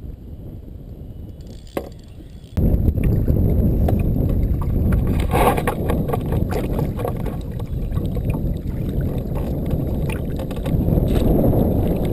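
Water around a canoe while a hooked mulloway is fought: at first a quiet hiss with a single click, then, about two and a half seconds in, a sudden jump to a loud, muffled rumble of sloshing water with scattered knocks and splashes.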